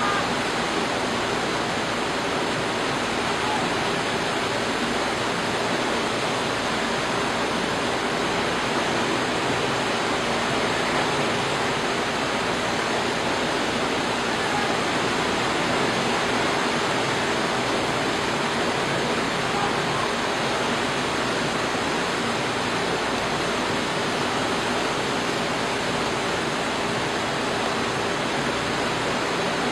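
Steady rushing noise of heavy water, level and unchanging throughout, without any separate wave crashes.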